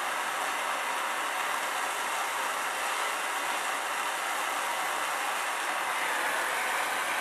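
Plumber's soldering torch burning with a steady, even hiss while it heats a copper pipe joint as it is soldered.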